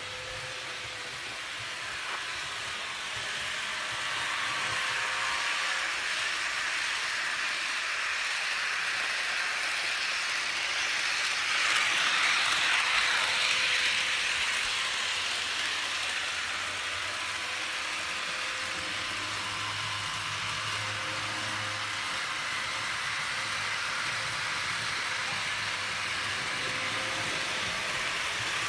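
HO-scale model freight train, a Roco SNCF BB 15000 electric locomotive pulling Lima four-axle wagons, running on the layout's track: a steady rattle of wheels on rail with a faint motor hum. It grows louder about twelve seconds in, as the train runs close by, then settles back.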